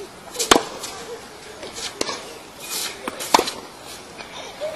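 Tennis balls struck with rackets in a rally: two sharp, loud hits about three seconds apart, with fainter knocks between them.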